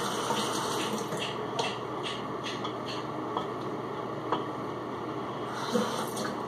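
Water running from a bathroom sink tap, a steady hiss, with a scatter of light clicks and taps from items handled at the sink.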